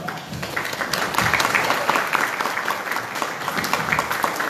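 Audience clapping in applause at the end of a lecture. It builds from about half a second in to a steady patter of many hands.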